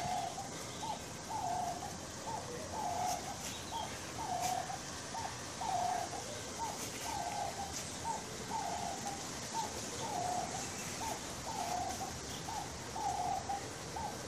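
A dove cooing: a short note and a longer one, repeated over and over about once a second.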